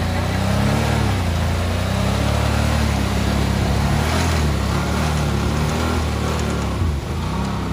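Mud-bogging ATV's engine revving up and down as it ploughs through a flooded mud hole, with water and mud splashing off its big tyres.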